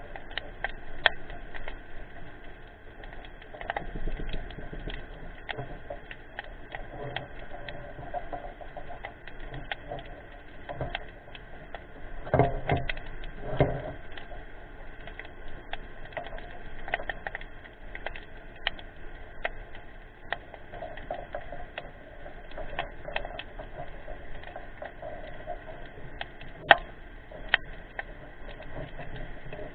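Irregular sharp clicks and taps over a steady low hiss, with a louder cluster of knocks about halfway through and two sharp clicks near the end.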